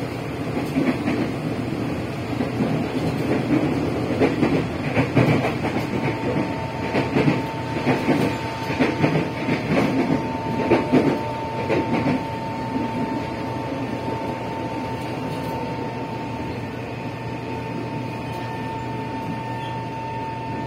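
Former Tokyo Metro 05 series motor car with four-quadrant chopper control, heard from inside: wheels clacking over rail joints. From about six seconds in, a single steady whine comes in, as the train slows for a station.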